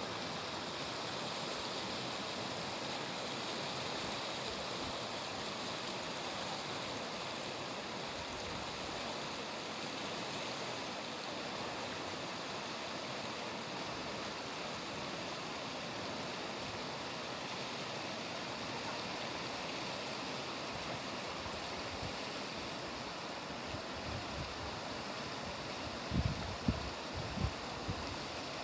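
Clear mountain river flowing, a steady rush of water. A few short low thumps come near the end.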